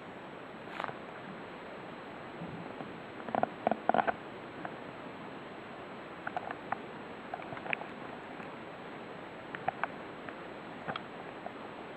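Scattered clicks and light knocks of something being handled, over a steady hiss. A small cluster of clicks comes about three and a half seconds in, and single ones follow now and then. No alarm is sounding.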